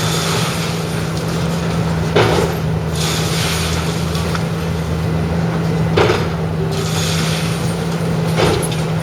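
Heavy demolition machinery running with a steady low drone, with three short, louder crunching bursts about two, six and eight and a half seconds in.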